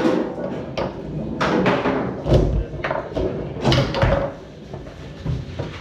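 Tornado foosball table in play: the hard ball cracking off the men and walls and the rods banging in quick irregular knocks, loudest at the start, about two seconds in and near four seconds.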